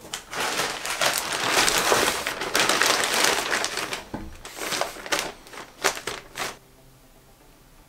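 Plastic poly shipping mailer crinkling as it is set down and handled: about four seconds of dense crinkling, then a few shorter separate crinkles as a hand presses on it.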